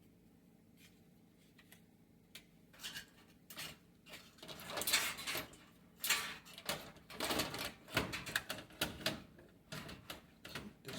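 Hands working on a range's control panel during repair: plastic and metal parts clicking, knocking and rustling, sparse at first, then a busy run of clicks and rattles from about three seconds in.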